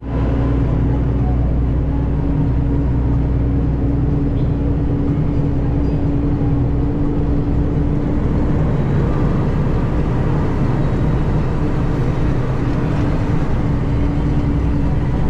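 Diesel engine of an International ProStar semi truck running steadily, a loud low drone with a constant hum and no change in engine speed.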